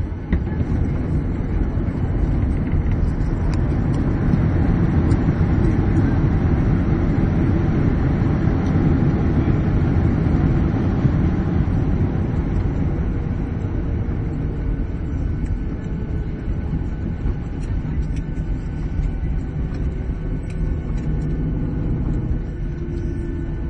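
Airliner cabin noise on the runway during landing: a loud, steady rumble of the jet engines and the wheels rolling, swelling about four seconds in and easing off gradually over the second half.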